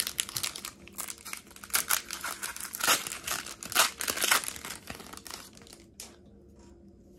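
Foil wrapper of a Pokémon trading card booster pack crinkling and tearing as it is ripped open by hand. There is a dense run of crackles that dies away about five and a half seconds in.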